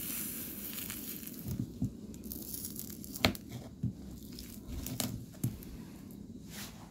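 A heated knife blade cutting through a wax pillar candle: a hiss at first, then a run of sharp cracks and snaps as the wax gives way, the loudest a little past three seconds in.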